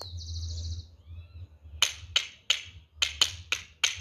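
Sharp, dry percussive clicks, roughly three a second, starting a little before halfway through. They are the first of a set of hidden sounds played for listeners to identify by timbre.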